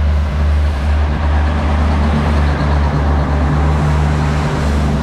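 A vehicle's engine running steadily, a loud low hum with road or running noise over it.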